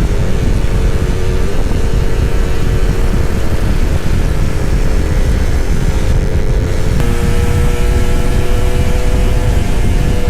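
Two-stroke motorcycle engine running steadily at speed under heavy wind rumble on the microphone; the engine note shifts to a new pitch about seven seconds in.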